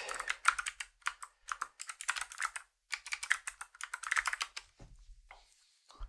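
Typing on a computer keyboard: quick runs of key clicks broken by short pauses, thinning out to a few single clicks near the end.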